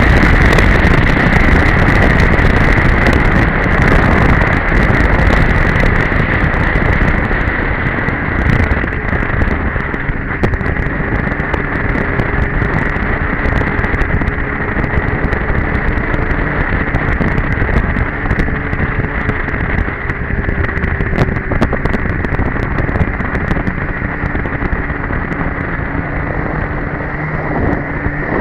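Two-stroke Polaris Edge snowmobile engine running steadily under way, with wind buffeting the camera microphone; the sound eases slightly after about eight seconds.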